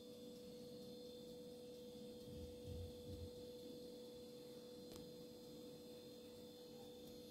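Near silence: room tone with a faint steady hum, and a couple of faint soft bumps about halfway through.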